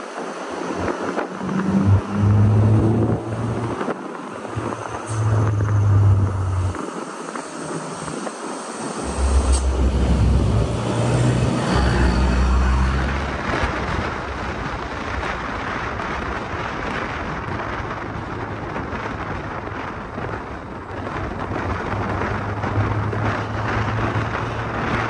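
Car on the move along a road: steady engine and road noise, with a low hum that comes and goes in the first half.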